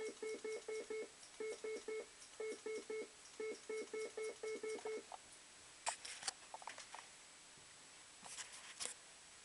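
Bell-Fruit 'The Bandit' fruit machine sounding a run of rapid electronic beeps, about six a second, in four short bursts, for about five seconds. After that come two quick clusters of sharp clicks and rattles.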